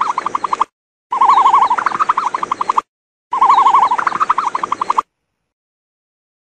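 An animal call, a warbling note that breaks into a rapid trill, played three times in a row as the same short clip, then stops.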